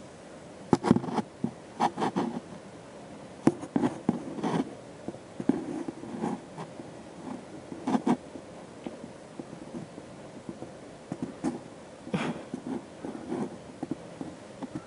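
Scattered scrapes and taps on a cardboard box, made by a cat moving inside it, in short irregular bursts with a few sharper knocks.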